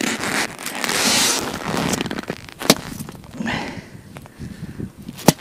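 Crunching snow and rustling clothing as the angler moves and handles things on the snow, with a few sharp clicks.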